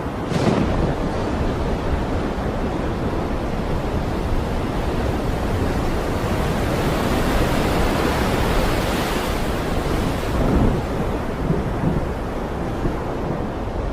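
Stormy sea: waves breaking and wind blowing, a dense steady rush of noise with a short surge just after the start and a longer swell around the middle.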